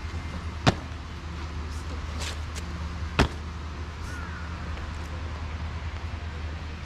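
Two sharp boot stamps on the paved parade ground, about two and a half seconds apart, as cadets execute drill movements, over a steady low hum.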